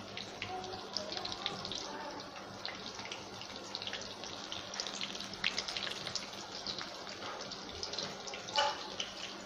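Batter-coated onion ring pakoras deep-frying in hot oil in a wok: a steady sizzle full of fine, dense crackles.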